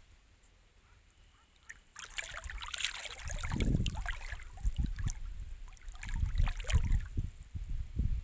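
Footsteps on sand: crunching and rustling start about two seconds in, followed by a run of uneven low thuds, as someone walks along the shore.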